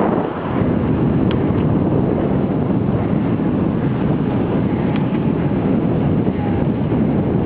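Wind buffeting the microphone of a moving bicycle, a steady rumbling noise mixed with tyre and road rumble, with a couple of faint ticks.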